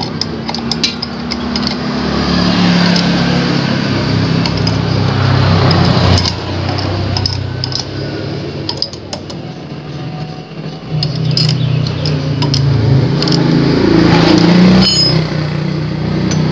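An engine-like hum that swells and dips, with light metallic clinks of steel bolts being fitted into a flywheel puller on the magneto rotor.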